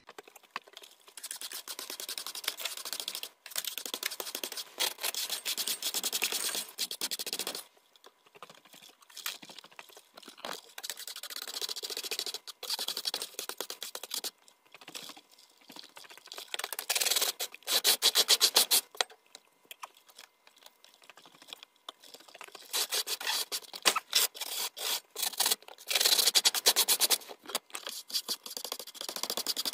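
A small hand brush sweeping spilled chick feed, shavings and droppings across a brooder's floor mat. The strokes are quick and scratchy, coming in runs of a few seconds with short pauses between them.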